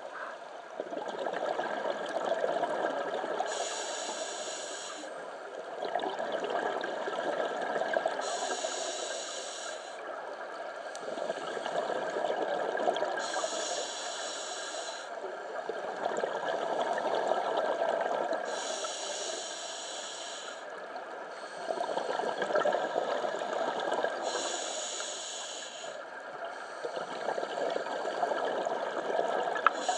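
Scuba diver breathing underwater through a regulator: a hiss of inhaled air lasting about a second, then a longer stream of exhaled bubbles, repeating about every five seconds.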